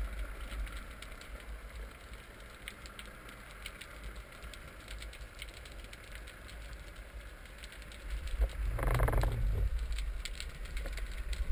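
Underwater ambience: a steady crackle of scattered faint clicks, with a brief louder whooshing rush about nine seconds in.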